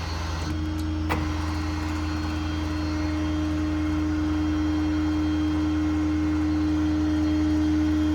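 Hydraulic whine of a truck-mounted IMT service crane being operated to stow it. The steady whine sets in about half a second in and slowly grows louder, over the low hum of the truck's 6.7 Powerstroke diesel running. There is a single click about a second in.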